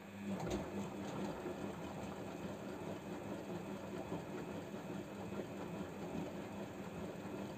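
Samsung washing machine running a drum-cleaning cycle: a steady motor hum that starts just after the beginning.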